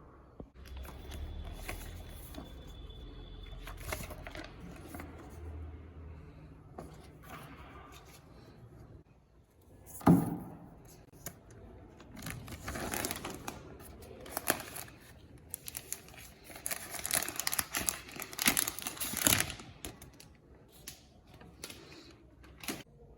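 Product packaging being opened and handled: irregular crinkling and tearing of wrapping, with one sudden loud thump about ten seconds in and a dense stretch of rustling later.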